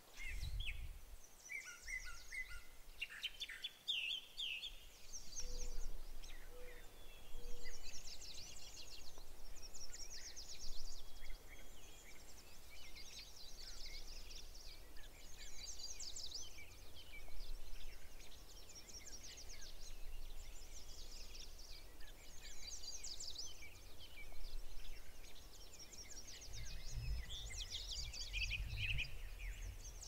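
Several songbirds singing at once, with overlapping high trills and chirps. A low rumble rises near the end.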